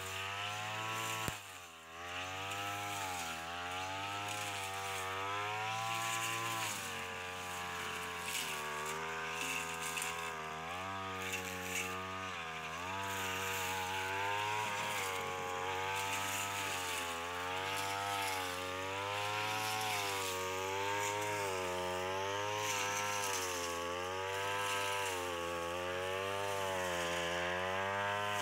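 Backpack brush cutter's small petrol engine running while cutting grass, its pitch rising and falling every second or two. Its speed dips sharply once about two seconds in and then picks back up.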